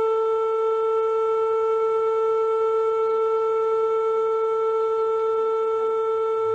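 Air-raid siren sounding one steady, unbroken tone.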